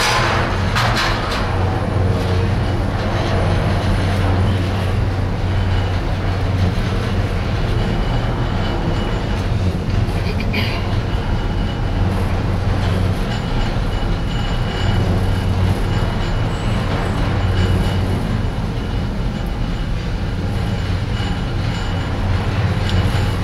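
Steady low rumble and hum inside a moving gondola cabin riding its cable, with one brief click about ten seconds in.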